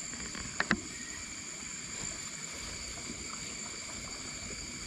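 Water sloshing as a person wades through a shallow river, with two sharp knocks close together a little under a second in. A steady high insect trill runs underneath.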